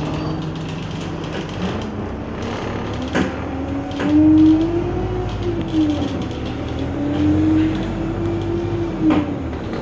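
Bus engine heard from inside the bus as it accelerates: its note climbs, drops back as it changes gear, then climbs and drops again. A few short knocks or rattles are heard along the way.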